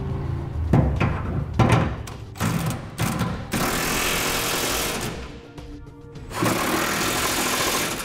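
Cordless impact wrench hammering in two long bursts as it runs flange nuts down tight on carriage bolts under a pickup bed. A few short knocks come first.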